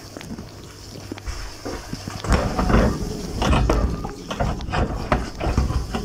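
Dishwasher running its wash cycle: water from the spray arms splashing unevenly against the dishes and the inside of the tub, growing louder and choppier about two seconds in.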